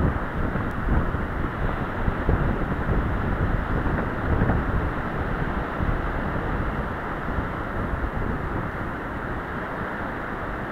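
Strong onshore wind buffeting the microphone: a loud, gusty rumble that eases slightly and steadies over the last few seconds.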